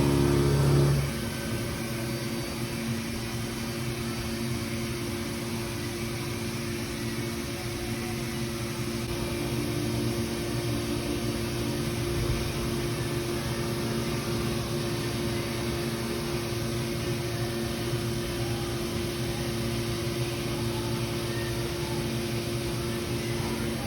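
Haas VF-4 vertical machining center running with a steady machine hum of two held tones. A louder, more tonal sound stops about a second in.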